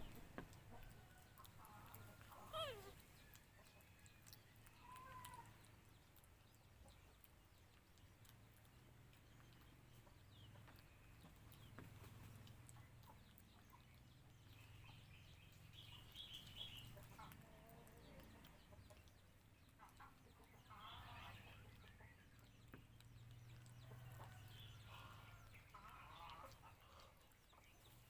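Faint, scattered animal calls over a low steady hum, with one falling squeal about two and a half seconds in.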